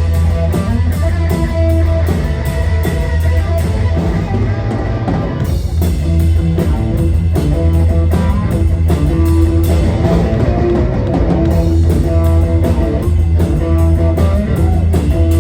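Rock band playing live: electric guitar, bass guitar and drum kit in an instrumental passage with a driving, even beat and no singing.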